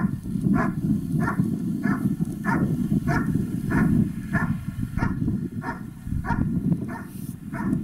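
A German Shepherd barking steadily at the helper in the blind, short barks about every half second in an even rhythm. This is the bark-and-hold of protection work, the dog holding the helper at the hide by barking. A steady low rumble runs underneath.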